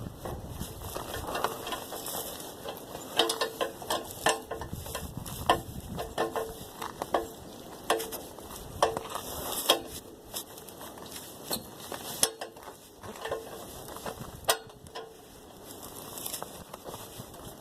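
Hand tools clicking and clinking against metal, irregular, about one or two clicks a second.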